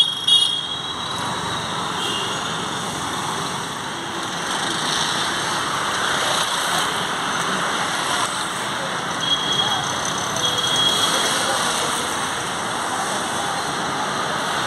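Steady city road traffic noise: passing vehicles making a continuous hum, with a couple of short high tones a little past the middle.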